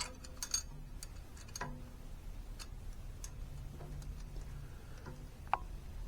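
A few light, scattered clicks and taps of metal parts as a piece of a floor jack is handled and set into its mount. The sharpest click, about five and a half seconds in, rings briefly.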